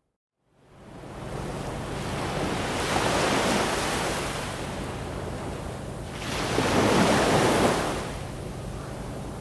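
Ocean surf: waves washing in as two slow swells a few seconds apart, the track fading in from a moment of silence at the start.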